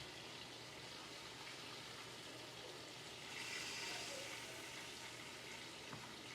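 Pork chops frying in oil in a pan, a faint steady sizzle that grows louder and brighter for about a second a little past the middle.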